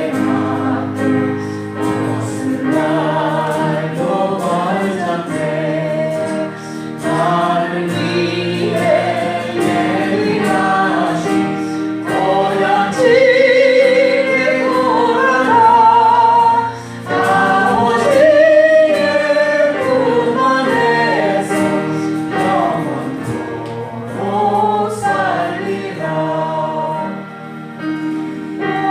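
Church worship song sung by a group of voices with vibrato, over steady held accompaniment chords; it grows louder in the middle, with long held sung notes.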